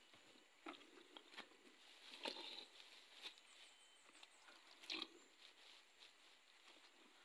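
Faint wet squelching and rustling of hands scooping lumps of coagulated rubber latex out of a plastic bucket into a woven plastic sack, in short irregular handfuls. The two loudest handfuls come about two seconds and five seconds in.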